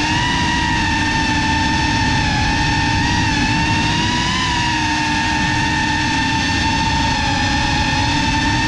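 GEPRC CineLog35 cinewhoop FPV drone's motors and ducted propellers giving a steady high whine that rises and dips slightly in pitch with throttle, over a low rushing noise of prop wash. Heard from the GoPro mounted on the drone.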